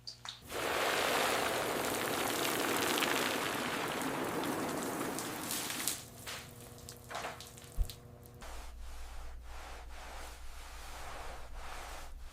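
A steady rushing hiss, like a spray, for about five seconds before it stops; then a few light clicks, a single sharp knock, and a low steady hum.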